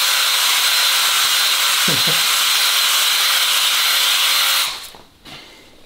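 Cordless drill spinning a silicon-carbide brush hone inside an engine cylinder bore, a steady scrubbing whirr as the bore is honed. It stops abruptly about three-quarters of the way through.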